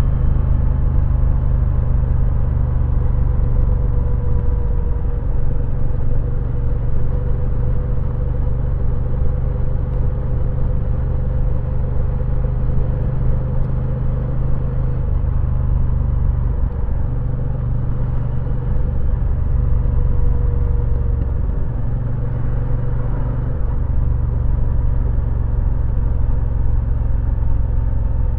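Moto Guzzi V9 Roamer's air-cooled 853 cc V-twin running under way, heard from on the bike: a steady, low engine drone. It dips briefly about halfway through and again about three quarters of the way through.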